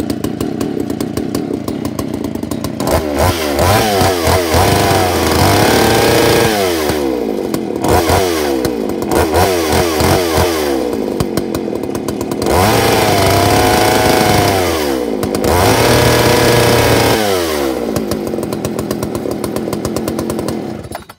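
Warm Craftsman two-stroke chainsaw running: it idles, is revved up four times with the throttle, dropping back to idle between, then settles to idle and cuts off suddenly near the end.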